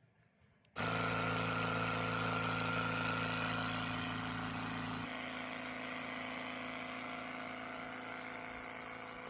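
Portable air compressor switching on abruptly about a second in and running with a steady hum, inflating a freshly plugged flat tire.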